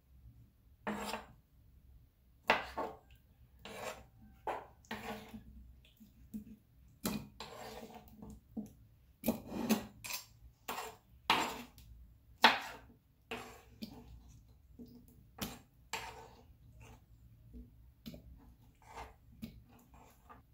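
Kitchen knife chopping pineapple on a wooden table: irregular taps and short scrapes about once a second, with the blade sweeping cut pieces into a bowl around the middle.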